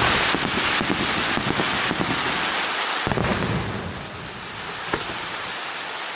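Aerial firework shells bursting and a dense crackling of glittering stars, strongest in the first three seconds. A deeper bang comes about three seconds in and a sharp pop near five seconds, while the crackle thins out.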